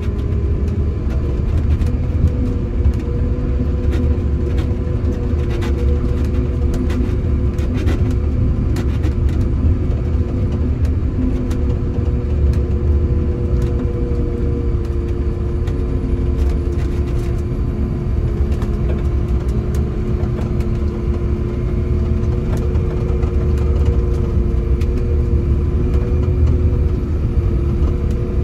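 Prinoth Bison snowcat's diesel engine running steadily under load as it pushes snow with its front blade, heard from inside the cab: a deep rumble with a steady mid-pitched whine over it. Scattered clicks and rattles come mostly in the first half.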